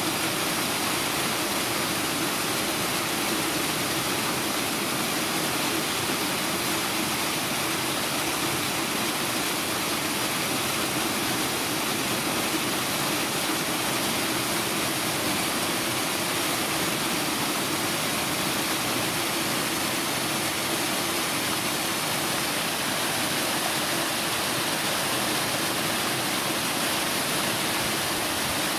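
A steady, unbroken rushing noise with no breaks or changes in level.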